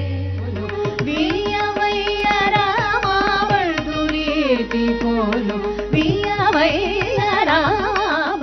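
Women singing Carnatic music, with long held notes that waver and slide between pitches, over regular drum strokes. The voices come in about a second in, over a steady drone.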